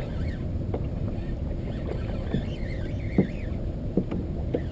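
Small wind-driven waves lapping against the hull of a Native Ultimate kayak, with a steady low wash and a few sharper slaps, the loudest a little past the middle and about a second later.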